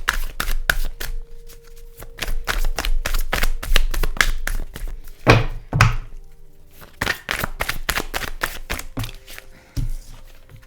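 Tarot deck being shuffled by hand: a fast run of card clicks and flicks, thinning out in the second half, with two heavier thumps of the deck about five and six seconds in. Soft background music with held tones underneath.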